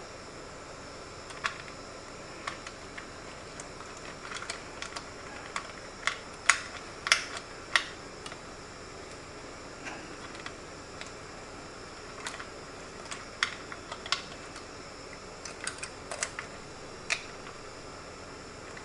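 Irregular light clicks and taps of computer hardware being handled as a CPU cooler is fitted over a freshly pasted processor and its thumb screws are started by hand. A few sharper knocks come about a third of the way in and again past the middle.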